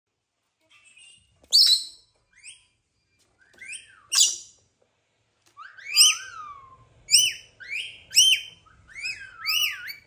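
Rainbow lorikeet giving short, shrill whistled calls that sweep up and down in pitch. They are scattered at first, then from about six seconds in come in a regular string of about two a second.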